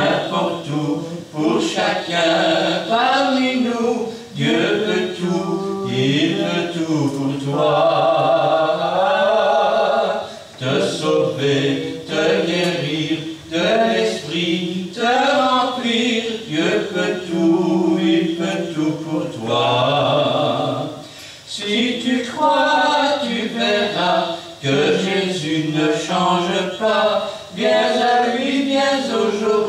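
A hymn sung without instruments: slow phrases with held notes and short breaks between them.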